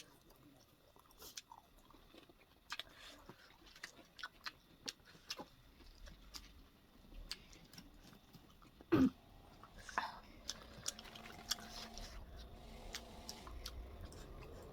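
Close-up chewing and biting of food, with irregular small wet clicks and crunches from the mouth. A single brief, louder sound stands out about nine seconds in.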